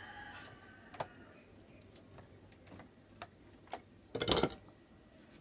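Faint scattered clicks and taps from handling a soldering iron and circuit board. About four seconds in comes a short, louder clatter as the soldering iron goes back into its coiled wire stand.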